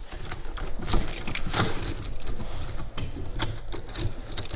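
Irregular clicks and rattles of small objects being handled, over a low rumble.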